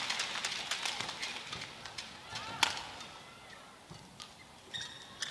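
Crowd applause dying away, then a badminton rally: a few sharp racket strikes on the shuttlecock, the loudest about two and a half seconds in, with short squeaks of players' shoes on the court.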